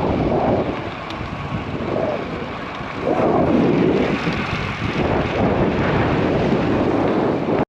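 Wind rushing over the microphone on a moving bicycle, a loud rumbling rush that eases for a couple of seconds and then swells again.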